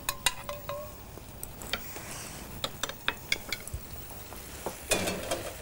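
Floured beef cubes frying in bacon dripping, with scattered crackles and spits. In the first second a metal spoon clinks a few times against an enamel saucepan.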